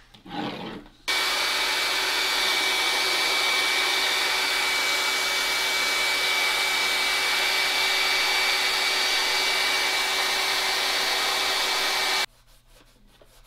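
Hair dryer switched on about a second in and running steadily, a rushing hiss with a high whine, blowing hot air on a leather knife sheath to warm it so it takes the conditioner; it cuts off suddenly near the end.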